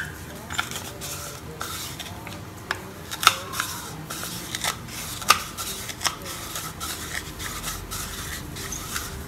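Small blue plastic twist-type garlic grinder being turned by hand, mincing garlic cloves: irregular plastic clicks and crunches.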